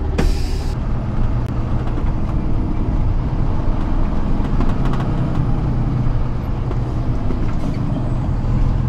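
Box truck's engine running steadily under road noise, heard from inside the cab while driving; the engine's pitch shifts a little about halfway through. A short hiss comes just after the start.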